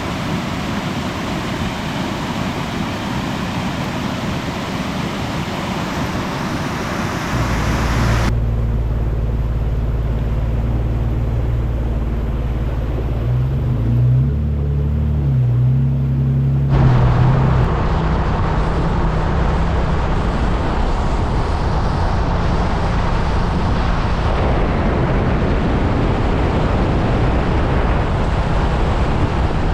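Steady rushing of a waterfall, which cuts off abruptly after about eight seconds. A four-wheel-drive vehicle's engine then hums steadily, its pitch rising and falling for a few seconds in the middle, before it settles into steady engine and road noise as the vehicle drives on.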